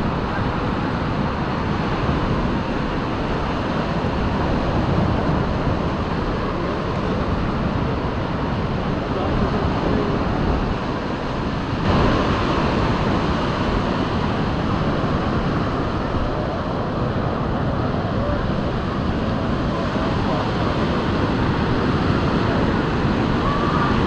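Sea surf washing steadily on a sandy shore, mixed with wind buffeting the microphone, with one short knock about halfway through.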